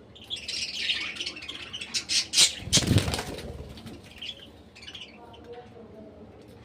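Caged budgerigars chattering, with a loud flurry of wing flapping about two to three seconds in and a few softer chirps after it.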